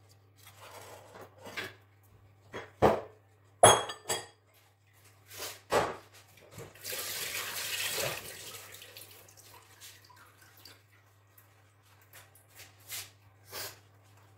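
Kitchen utensils knocking and clinking: a handful of sharp knocks, one with a brief ringing tone a little under four seconds in, and a short hissing rush about seven seconds in, over a faint steady hum.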